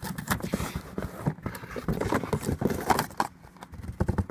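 Snus cans being handled in quick succession: a busy run of clacks, knocks and rattles as the small cans knock together and are set down.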